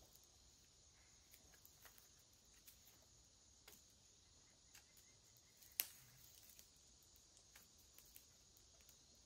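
Near silence: faint, scattered clicks and snaps from a small campfire as it is tended, with one sharper snap about six seconds in.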